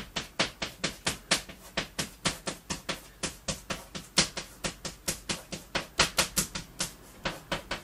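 Chalk tapping and scratching on a blackboard as characters are written: a quick, uneven run of short strokes, several a second.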